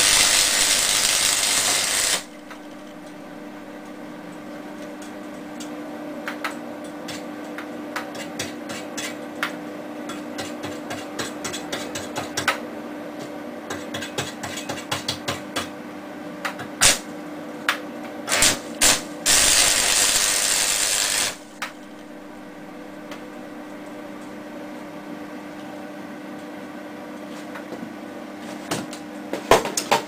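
Homemade unballasted arc welder built from two microwave oven transformers, with a 2 mm welding rod burning an arc on steel. The arc gives a loud crackling hiss for about two seconds at the start and again for about two seconds about two-thirds of the way through. In between, many short clicks come as the rod is struck against the work, over a steady hum.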